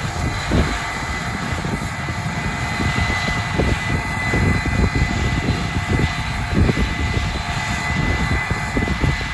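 Case IH 8250 Axial-Flow combine on tracks running under load while harvesting corn: a steady, dense drone of engine and threshing machinery with a thin steady high whine.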